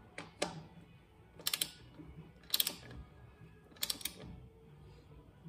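Socket ratchet clicking in four short bursts about a second apart as it is swung back and forth on the lug nuts of a truck's rear wheel, tightening them after the wheel is refitted.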